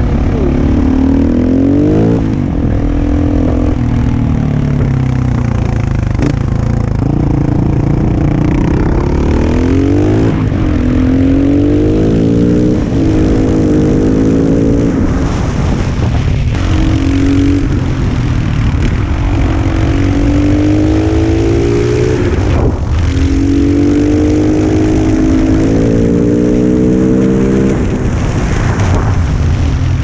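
Husqvarna SM 610 supermoto's single-cylinder four-stroke engine under way, its pitch climbing under throttle and then dropping back sharply, again and again, as the bike is ridden through a run of bends.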